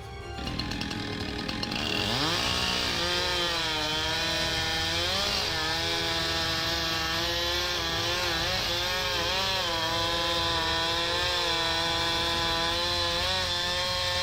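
Chainsaw revving up about two seconds in, then running at high speed as it cuts into a tree, its pitch dipping briefly now and then under load.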